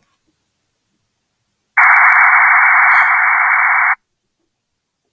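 A Rattlegram digital text-message burst: about two seconds of even, hiss-like data signal held within a narrow midrange band. It starts sharply about two seconds in and cuts off just as sharply.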